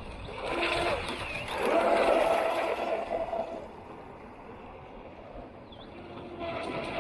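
Atomic SR-85 RC speedboat running on the water: a steady motor whine over rushing water. It grows loud about two seconds in, fades away, and rises again near the end.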